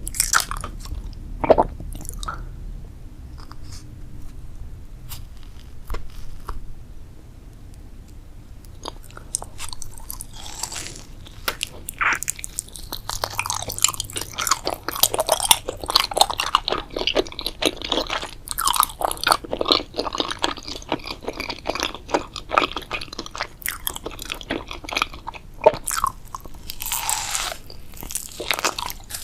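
A person biting and chewing crunchy food into a close microphone: a few scattered bites and clicks at first, then steady dense crunching from about a third of the way in.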